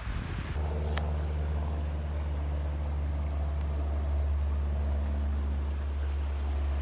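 Steady low hum of a running motor, holding one fixed pitch without change, starting about half a second in, with a single sharp click about a second in.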